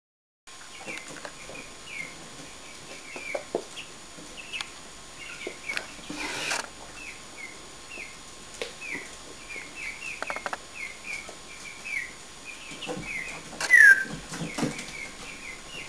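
Pet hen chirping: a steady run of short, falling chirps about two a second, with a louder falling call near the end and a few faint taps in between.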